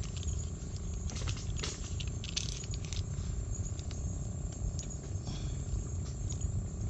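Garlic and butter sizzling in a frying pan over a campfire on slow heat, with scattered small crackles and pops over a low steady rumble.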